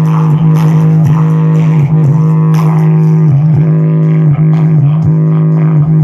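Bass-boosted music played loud through a Panasonic SC-AKX220 system's subwoofer, with the equalizer and bass boost turned up: one heavy, sustained bass note that breaks off briefly again and again in a steady rhythm.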